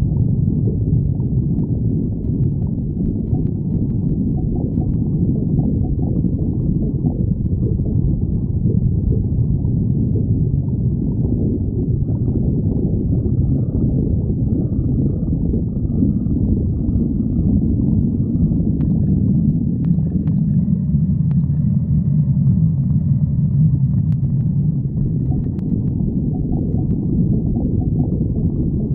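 A person's stomach growling and gurgling without a break, a low churning rumble that settles into a deeper, steadier rumble about two-thirds of the way through.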